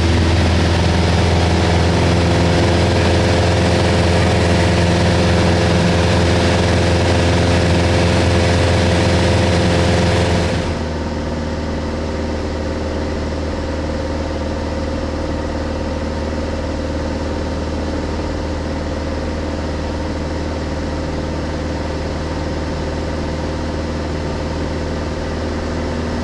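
Light airplane's piston engine and propeller droning steadily in flight, heard inside the cabin. About ten seconds in, the sound turns duller and a little quieter, then runs on steadily.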